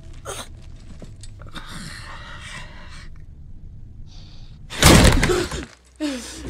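Horror-film soundtrack over a low steady drone: a possessed teenage boy draws a long, raspy gasping breath, then a sudden loud crashing hit comes about five seconds in and cuts off sharply.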